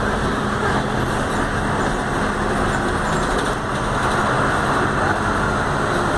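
Volkswagen 17-230 OD city bus driving, heard from inside its cabin: a steady engine hum under road noise.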